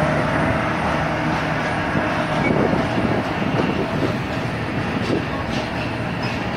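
Freight train of container wagons rolling past, the wheels rumbling and clattering over the track. The locomotive's engine drone fades out in the first second.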